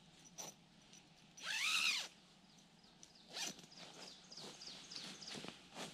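A zipper pulled in one quick stroke about a second and a half in, its pitch rising then falling. It is followed by a few softer, short rustles and knocks.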